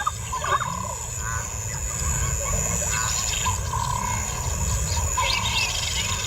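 Wild animal calls over a steady low rumble, with short pitched calls and some higher chirping toward the end.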